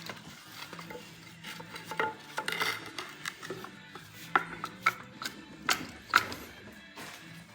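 Hand tools working on metal engine parts: irregular clicks and clanks, with a few sharper metallic knocks in the middle and later part.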